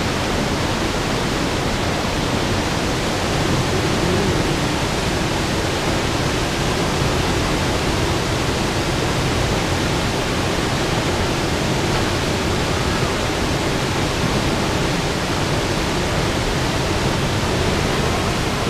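Waterfall pouring into a plunge pool: a steady rush of falling water that never lets up.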